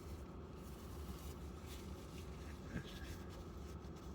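Faint eating sounds: a fork scraping and clicking in a takeout container, with chewing, over a steady low hum.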